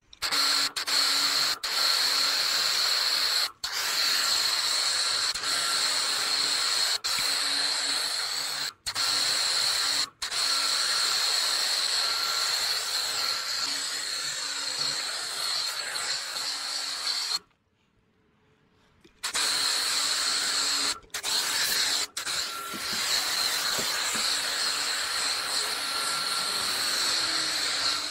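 A pressure washer runs with a foam cannon spraying snow foam: a steady hiss with a high whine. The spray cuts out briefly a few times when the trigger is let go, and once for about two seconds about two-thirds of the way through.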